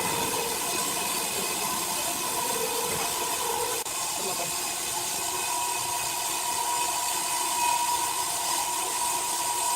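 Sawmill machinery running: a steady hiss with a steady high whine, with a brief dip about four seconds in.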